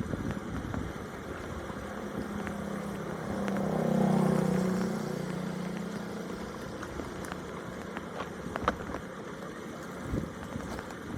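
A motor vehicle's engine passing by, swelling to its loudest about four seconds in and then fading, over a steady wash of background noise with a few scattered clicks.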